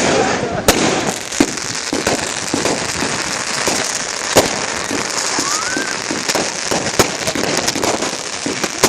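Fireworks going off in a display: continuous crackling and popping with sharp bangs every second or two, and a short rising whistle about two-thirds of the way through.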